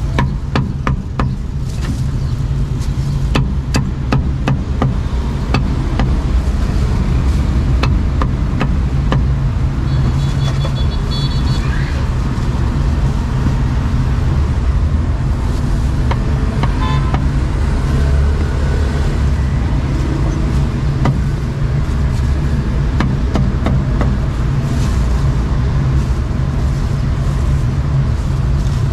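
Steady low rumble of street traffic, with a meat cleaver striking a round wooden chopping block: a run of sharp knocks, thickest in the first ten seconds or so, then sparser.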